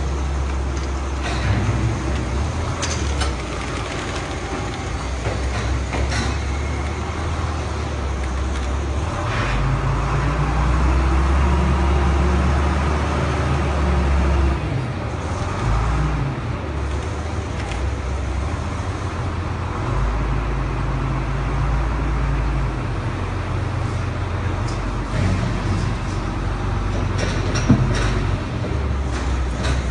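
Engine of a heavy lifting machine running, its revs rising and falling about ten seconds in, with a few metallic knocks.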